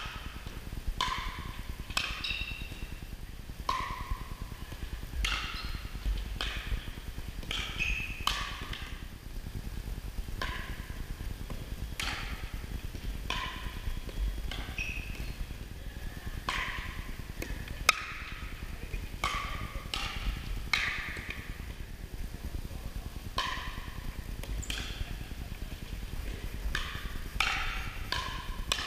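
Pickleball paddles hitting a plastic pickleball back and forth in rallies: a sharp, ringing pock about once a second, echoing in a gymnasium.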